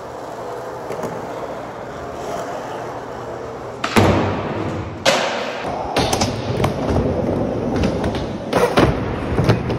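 Skateboard wheels rolling on smooth concrete, then two sharp, loud board knocks about four and five seconds in. From about six seconds on comes a run of clacks and thuds of the board hitting ramp and floor, ending a wall-ride attempt in a fall.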